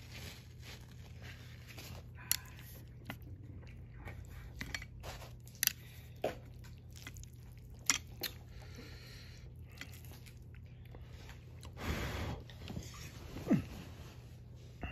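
A person chewing instant noodles close to the microphone, with scattered sharp clicks and a louder, noisier mouthful near the end, over a steady low hum.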